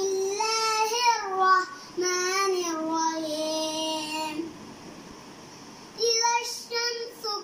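A six-year-old boy chanting Quran recitation in a high, melodic voice, drawing out long held notes. He sings three phrases, with a pause of about a second and a half before the last.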